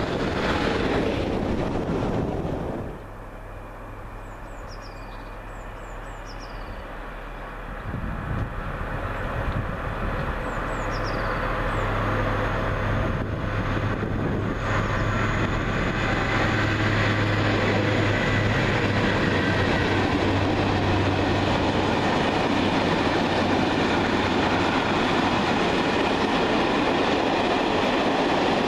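An electric locomotive runs past close by for the first three seconds, then cuts off. A diesel-hauled freight train follows: its engine hum builds as it approaches, then its wagons roll past with a steady rumble and clatter of wheels on the rails.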